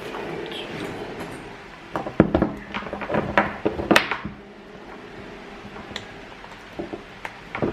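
Clicks and knocks of small objects being handled, clustered from about two to four seconds in, with a few more near the end, over a steady low hum.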